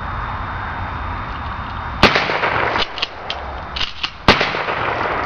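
Two gunshots about two seconds apart, sharp cracks with fainter cracks between them, over steady background noise.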